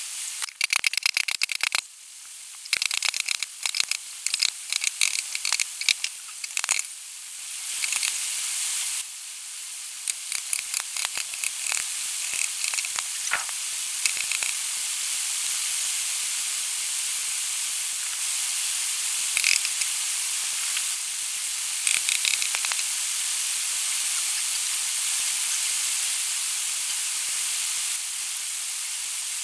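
Pressurised spray nozzle hissing into a bare diesel engine block. It comes in many short sputtering bursts for the first nine seconds or so, then runs as a steady hiss.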